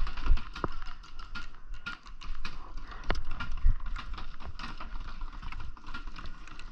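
Irregular pops of paintball markers firing across the field, several a second, with a few louder pops about three seconds in.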